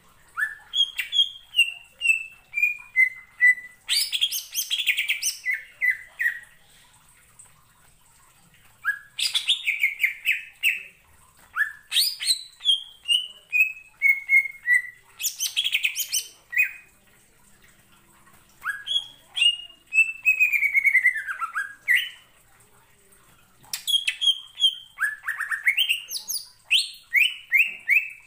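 Caged male cucak ijo (green leafbird) singing in loud phrases. Each phrase is a fast run of short whistled notes that steps down in pitch. The phrases are separated by pauses of one to three seconds.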